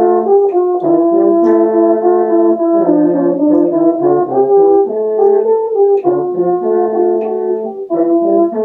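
Two French horns playing a duet, two melodic lines of held notes moving together, with a brief break between phrases near the end before the playing carries on.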